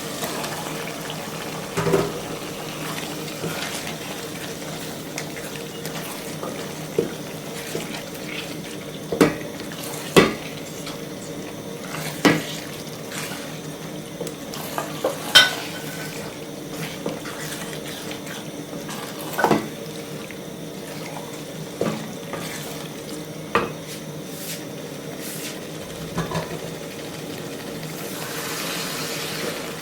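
Chicken being stirred into curry sauce in a cooking pot: a utensil scrapes and knocks against the pot about a dozen times, at uneven intervals, over a steady low background hum.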